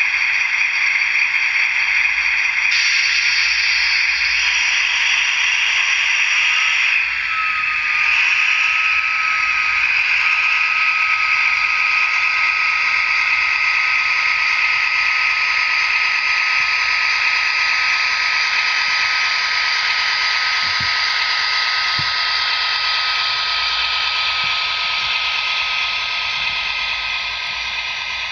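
Sound decoder of an HO-scale REE Models SNCF BB 67300 diesel locomotive playing its diesel engine sound through the model's small speaker. The sound steps up about seven seconds in, when a thin whine rises in pitch and then holds steady, with a few faint clicks later on.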